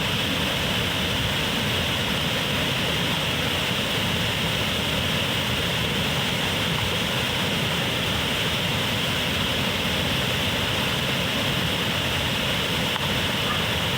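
Steady rushing roar of a waterfall, an even noise with no breaks.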